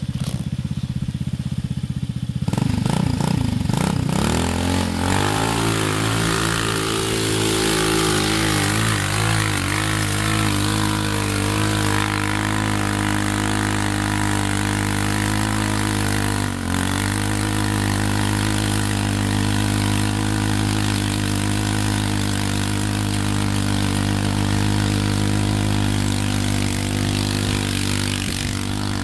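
Homemade two-wheel-drive motorcycle's engine, first a low distant hum, then revving up a few seconds in and pulling hard at steady high revs as it climbs a loose sandy slope. It dips briefly once about midway and then picks straight back up.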